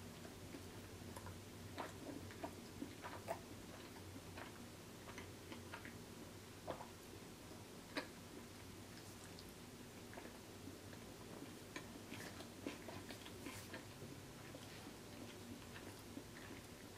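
Faint close-up chewing of tortilla chips, with scattered soft crunches and wet mouth clicks and pops.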